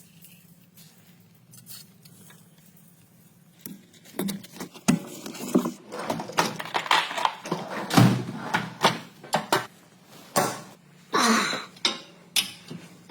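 Metal tools and car parts clinking and clattering in quick, irregular knocks, starting about four seconds in after a quiet stretch.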